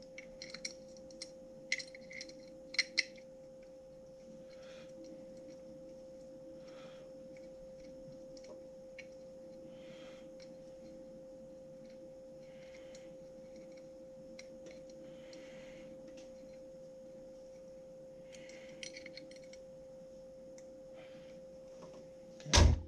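Small metal clicks and ticks, then faint soft handling rustles, as hands fit screws into a small aluminium camera cage, over a steady faint hum. The clicks cluster in the first few seconds.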